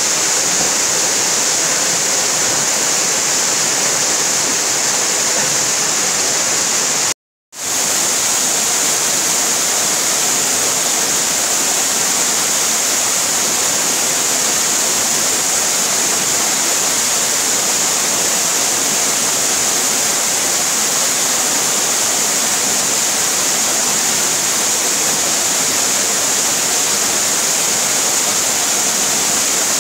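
Waterfall plunging into a rock pool: a steady rush of falling water that cuts out completely for a moment about seven seconds in.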